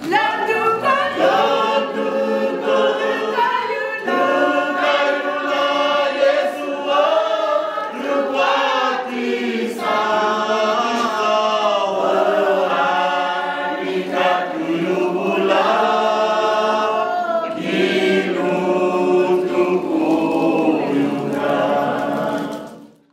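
A choir singing, several voices together. The singing cuts off suddenly near the end.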